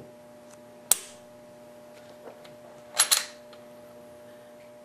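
Dry-fire of a Smith & Wesson M&P pistol fitted with an Apex aluminum AEK trigger: one sharp click about a second in as the trigger is pulled and the striker releases, then a quick double click about two seconds later.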